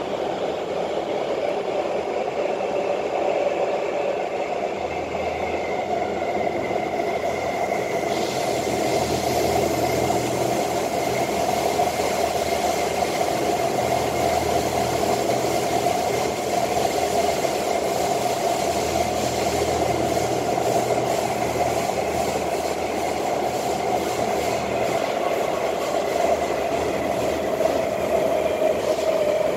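Cabin noise of a Kawasaki C151 metro train fitted with permanent-magnet synchronous traction motors, running between stations: a steady rumble and rolling noise, with a steady high tone joining about six seconds in and a low hum that swells and fades.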